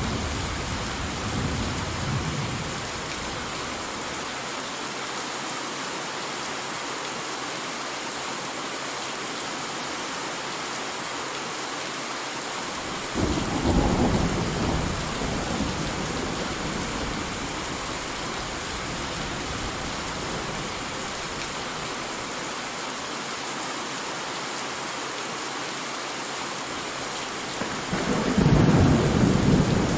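Steady rain with rolls of thunder: one rumble fading in the first few seconds, another breaking in suddenly about 13 seconds in and dying away, and a third swelling near the end.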